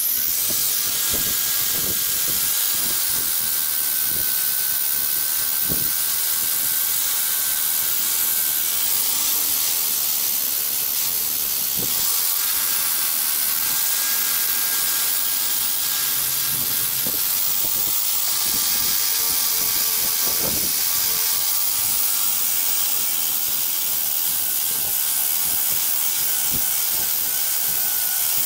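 Angle grinder fitted with a sanding disc, running and sanding a wooden walking stick: a steady hiss of abrasive on wood over the grinder motor's thin whine.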